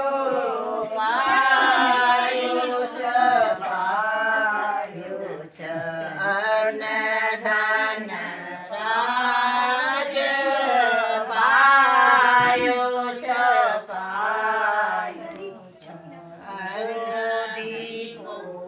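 Women's voices singing a folk song together in unison, in phrases with brief breaks, quieter for a few seconds near the end.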